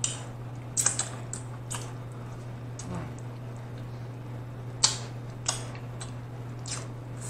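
Close-up wet mouth sounds of eating saucy boiled shrimp: scattered short lip smacks and sucking, with sauce licked off the shrimp and fingers. A steady low electrical hum runs underneath.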